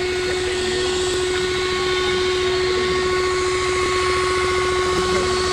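A loud, unexplained drone coming from the sky: several steady, held horn-like tones over a constant rumbling hiss, unchanging throughout, described as a strange flute-like sound.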